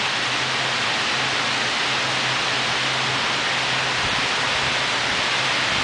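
Heavy tropical rain pouring down in a dense, steady hiss, with strong wind; low gusty rumbles come in about four seconds in. A faint steady low hum lies beneath.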